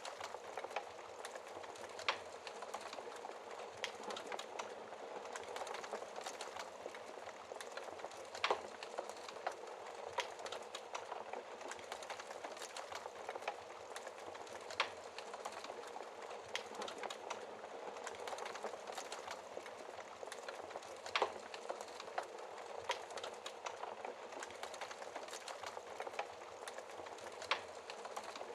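Wood fire crackling in a fireplace: a steady soft hiss full of small crackles, with a sharper pop every few seconds.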